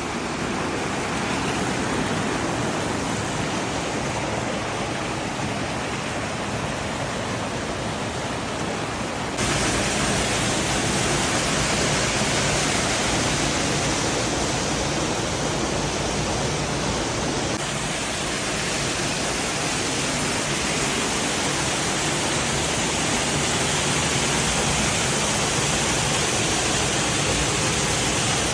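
Waterfall: a steady rush of falling water that steps up abruptly in loudness and brightness about nine seconds in.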